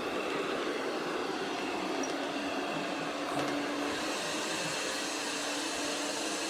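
MAMNV robot vacuum and mop running, a steady whir with a low hum joining in after about four seconds.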